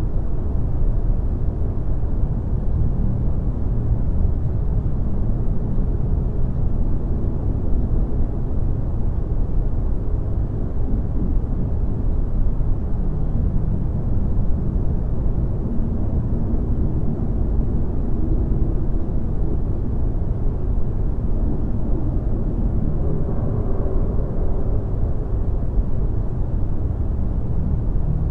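A steady, deep rumbling noise with no breaks or distinct events, heaviest in the bass.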